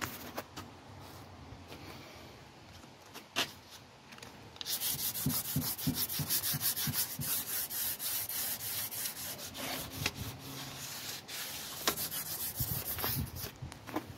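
Rapid rubbing strokes by hand over the Land Rover radiator panel, starting about a third of the way in, with a few sharp clicks before.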